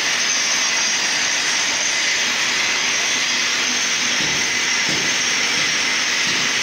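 Steady rushing hiss of running machinery, with a faint hum underneath.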